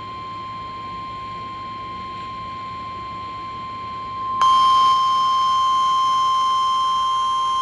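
NOAA Weather Radio warning alert tone from a WR300 weather radio: one steady high tone. About four and a half seconds in it becomes much louder and shriller as a second tone joins it.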